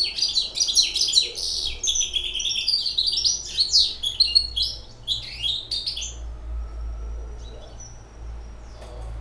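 A six-month-old hybrid finch singing a fast song of rapid, high notes that stops about six seconds in.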